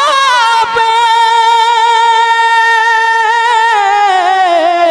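A young man's high voice singing a naat unaccompanied into a microphone. He holds one long note, wavering at first and then steady, and near the end lets it slide down in pitch.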